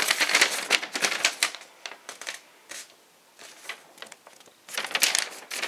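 Paper rustling and crinkling as an instruction sheet is handled and unfolded: a dense run of crisp rustles for about the first two seconds, scattered small rustles, then another burst near the end.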